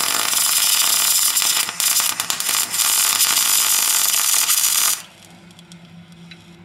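MIG welder arc crackling and hissing steadily as a weld is run on a steel spreader plate, then stopping abruptly about five seconds in.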